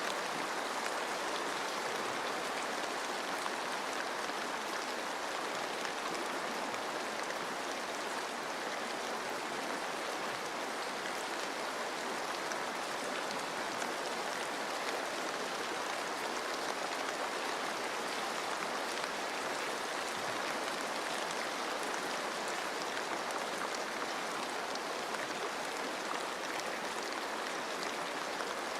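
Steady rain pattering on forest leaves, mixed with the even rush of a flowing stream. It holds constant with no thunder or other events.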